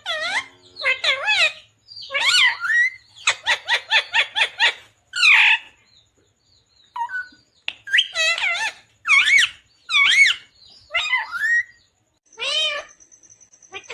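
A rose-ringed (Indian ringneck) parakeet calling in bursts of shrill, pitch-bending chirps and squawks, with a quick run of short notes about three seconds in.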